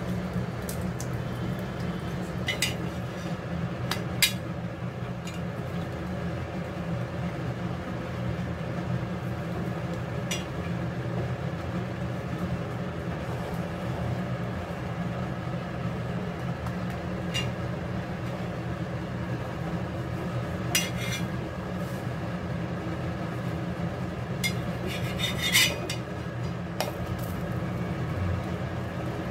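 Metal spatula clicking and scraping against an iron tawa a handful of times while a parotta cooks, the sharpest click about four seconds in and a cluster near the end. Under it runs a steady low hum and hiss.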